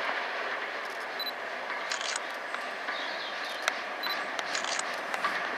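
Steam locomotive working a train towards the listener, a steady rushing sound without distinct beats, with a few sharp clicks, one clearly louder about two-thirds of the way through.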